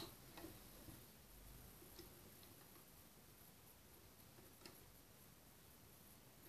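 Near silence with a few faint, scattered clicks as loops of yarn are worked over the plastic pegs of a round knitting loom.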